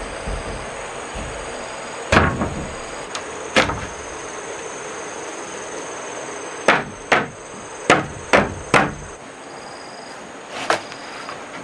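Sharp knocks on wooden planks: a few scattered thuds, then a quick run of five knocks about two a second past the middle, and one more near the end. Insects chirr steadily in the background.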